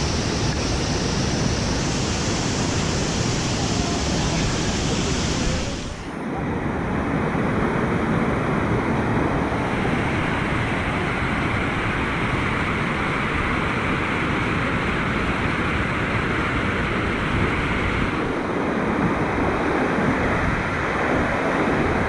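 Waterfall pouring: a steady rush of falling water, which briefly dips and changes tone about six seconds in.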